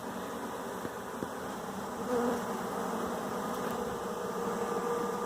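Honeybees buzzing in a steady hum, with one louder buzz passing close about two seconds in.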